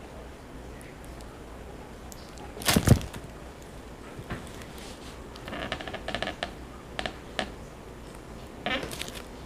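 Handling sounds of a smartphone being held and tapped: scattered taps and clicks, with a louder rustling bump about three seconds in and another near the end, over a low steady room hum.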